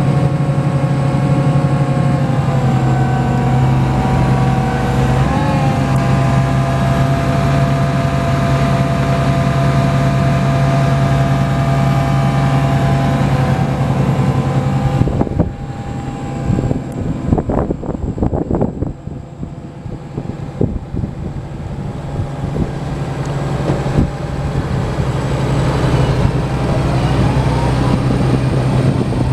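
John Deere 8130 tractor's six-cylinder diesel engine running steadily at idle, with a slight dip and recovery in pitch a few seconds in. About halfway through the engine sound drops for several seconds under irregular crackling, then comes back.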